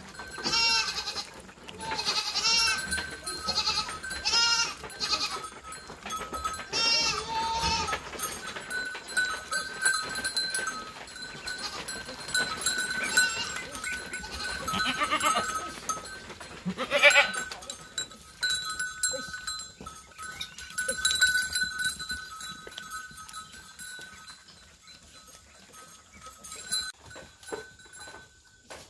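Goats bleating, a quick string of wavering calls in the first eight seconds and a loud one about seventeen seconds in, over a faint steady high tone.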